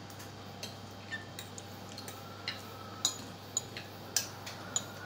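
Forks and spoons clicking and scraping against plates during a meal of spaghetti and fried noodles, in about ten irregular clinks, several with a short ring, coming quicker and louder in the second half.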